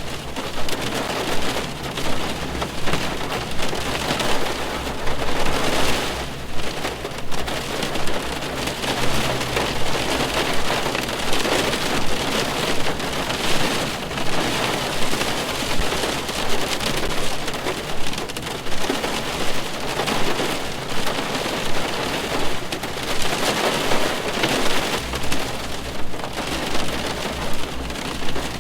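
Steady rain falling on a car's roof and windows, heard from inside the cabin: a dense, even patter of many drops that swells and eases slightly about once a second.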